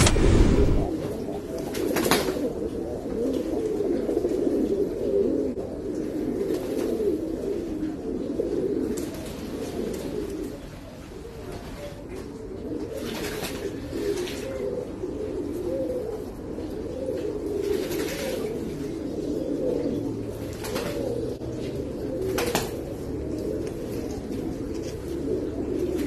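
A flock of domestic pigeons cooing together in a low, continuous, overlapping warble, with a few brief wing-splashes from birds bathing in shallow water.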